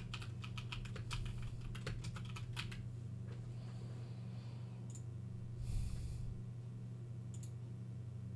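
Typing on a computer keyboard: a quick run of keystrokes for about the first two and a half seconds, then a few scattered clicks, over a steady low hum.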